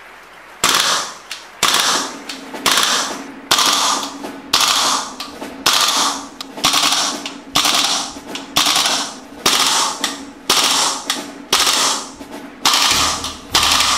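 Sharp, bright cracks at a steady one per second, each ringing out for most of a second, over a steady low hum; a deep bass joins near the end.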